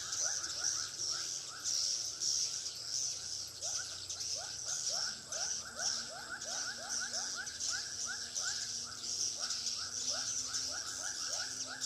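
A colony of edible-nest swiftlets twittering inside a swiftlet house: many short rising chirps, several a second and overlapping, over a steady high hiss. The lure-call speakers are off, so these are the birds' own calls.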